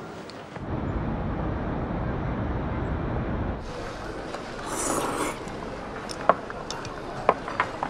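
Restaurant background noise with several sharp clinks of glass and tableware in the second half.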